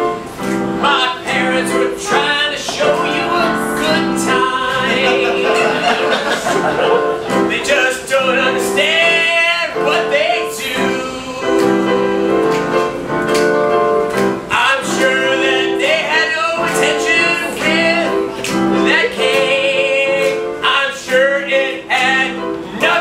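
An improvised song sung live with vibrato over an instrumental accompaniment of held, repeating chords.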